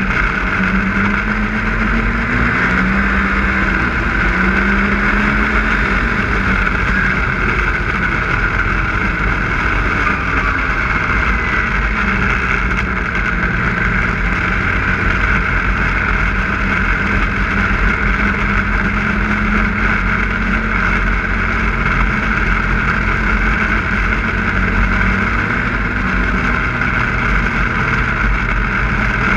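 Snowmobile engine running steadily at trail-riding speed, its pitch rising and falling a few times with the throttle, over a constant rush of track and wind noise.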